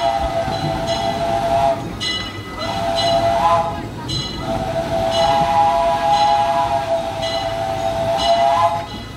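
Steam locomotive's chime whistle on the Disneyland Railroad blowing three blasts: one ending about two seconds in, a short one, then a long one of about four seconds. Faint ticks repeat about once a second over a low rumble.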